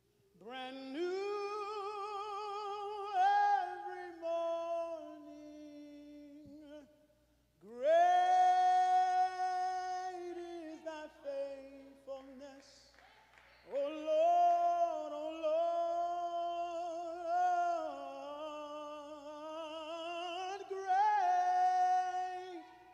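A man singing solo and unaccompanied into a microphone in a high voice, in three long phrases of held notes with wide vibrato and melismatic runs, separated by short breaths.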